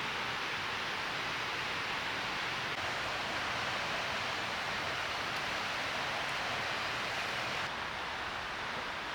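Steady rushing of a waterfall, an even hiss of falling water that drops slightly in level near the end.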